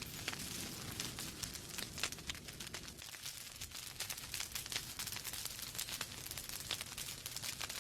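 Wood fire in a fireplace crackling, with many small sharp pops and snaps over a steady low rumble of burning logs.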